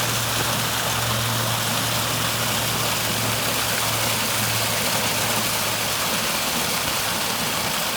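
Garden pond waterfall running: a steady rush of falling water, with a low steady hum underneath.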